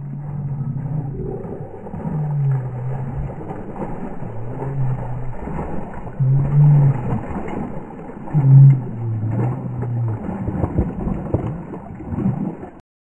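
Border Collie digging and splashing in shallow muddy water, growling low in repeated stretches of about a second, muffled. The sound cuts off suddenly near the end.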